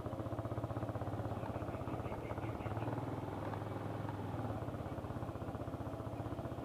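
Single-cylinder motorcycle engine running steadily at low revs, a fast even firing beat with no revving.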